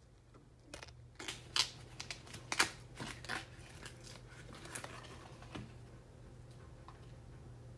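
Dry papery sheaths of thin bamboo shoots crackling and tearing as they are peeled by hand, in a run of sharp crackles over a few seconds, loudest about one and a half and two and a half seconds in. A low steady hum runs underneath.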